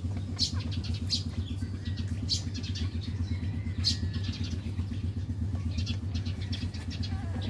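A steady low hum runs throughout. Over it come short clusters of faint high clicks and squeaks from newborn Shih Tzu puppies nursing, several times.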